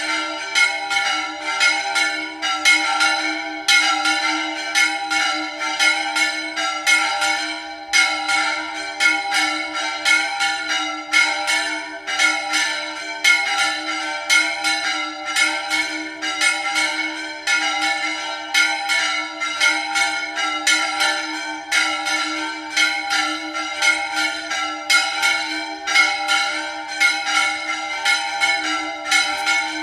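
Church bells rung in a fast repique: quick strikes, several a second, keep up an unbroken peal over the lingering hum of the bells.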